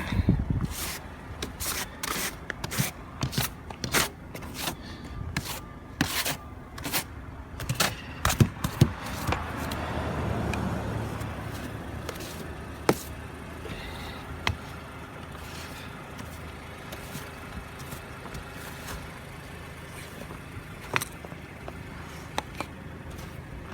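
Snow being cleared by hand: quick repeated scraping strokes, about two a second, for the first nine seconds, then a broad low swell around ten seconds in and only occasional single scrapes after it.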